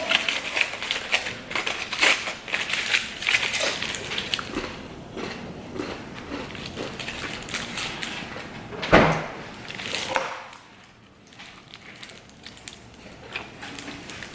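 A burrito being unwrapped and eaten: crinkling and crackling of the wrapper with biting and chewing, busiest in the first few seconds, and one louder bump about nine seconds in.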